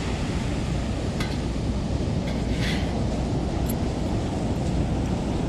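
Steady wind rumbling on the microphone, with beach surf washing behind it and a few faint ticks.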